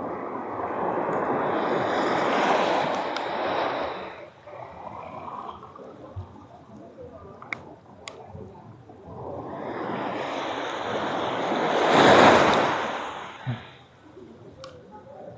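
Waves breaking and washing up the beach: two surges, each building for a few seconds and then fading, the second one louder, with a few faint clicks in the lull between them.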